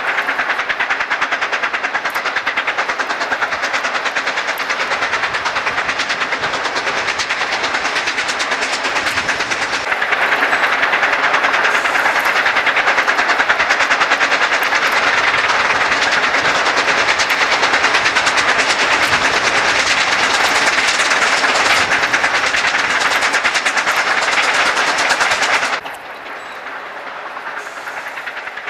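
4-8-4 steam locomotives working upgrade, a dense rapid stream of exhaust beats and train running noise. It grows louder about ten seconds in and drops off suddenly near the end.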